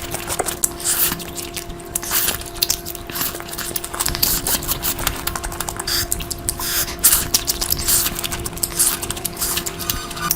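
Close-miked wet chewing and smacking of curry with meat, many irregular squelches and crackles over a steady low hum.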